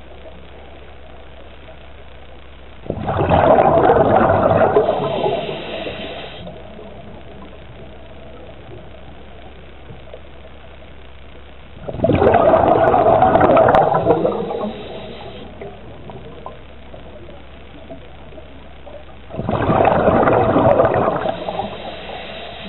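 Scuba diver's regulator heard underwater: three exhalations, each a rush of exhaust bubbles lasting two to three seconds, roughly eight seconds apart, with a low steady background in between.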